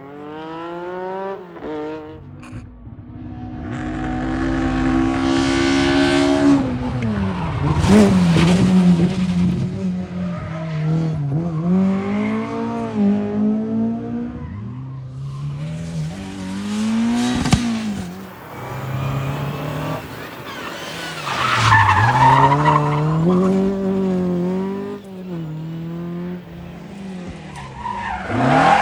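Rally car engine revving hard, its pitch climbing and dropping again and again with throttle lifts and gear changes, with tyre squeal. It grows louder over the first several seconds and stays loud.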